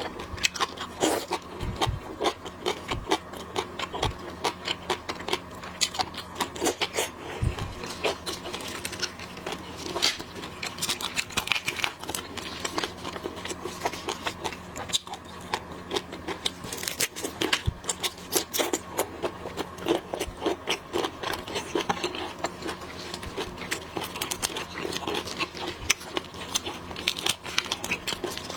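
Close-miked eating sounds of a seafood mukbang: chewing and handling shrimp and shellfish shells, a dense, irregular run of small clicks and crackles over a faint steady hum.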